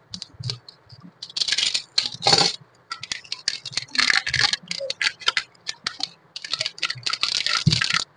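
Clear plastic wrapping crinkling in short, irregular bursts as it is torn and peeled off a new speed cube by hand.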